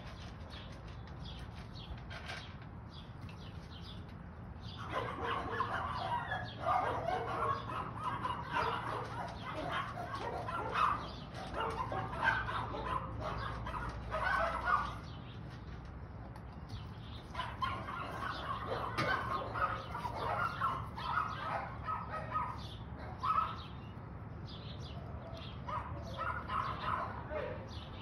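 An Akita at a bowl hung on its pen gate, its mouth making rapid, wet clicking sounds in two long bouts. The first starts about five seconds in, and the second follows a short pause.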